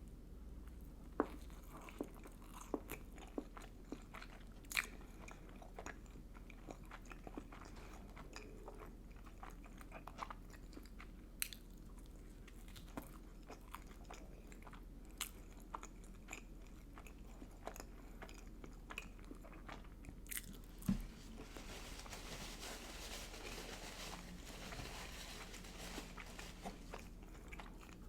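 A person eating, with chewing and biting mouth sounds and many sharp crunchy clicks. About three-quarters of the way through the sound turns into a denser, steadier crunching.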